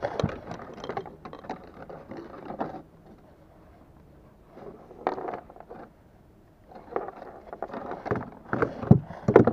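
Irregular knocking, scraping and rattling against a plastic kayak hull and deck as a landed barramundi is handled on a lip grip, coming in three bursts with the hardest thumps near the end.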